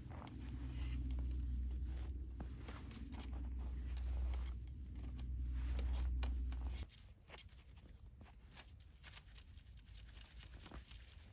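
Irregular crunching and crackling of snow and ice, over a low rumble that cuts off suddenly about seven seconds in.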